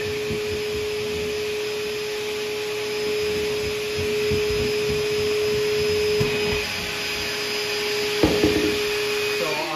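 DeWalt dust-extractor vacuum running with a steady hum and hiss. A claw hammer's head scrapes and rubs along the seams of an OSB subfloor, catching on raised panel edges, with a sharp knock about eight seconds in.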